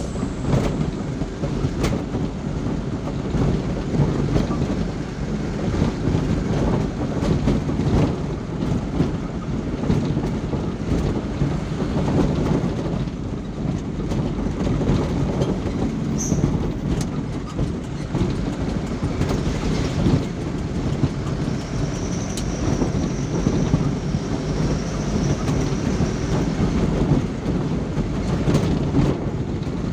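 Steady engine drone and road rumble heard from inside a moving vehicle on the road, with occasional short knocks from bumps.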